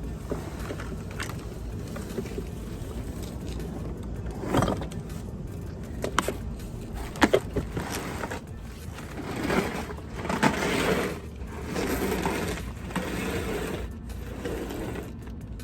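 A cardboard-boxed dorm refrigerator being handled and moved: a few sharp knocks and bumps, then stretches of rustling and scraping as the box is slid and shifted.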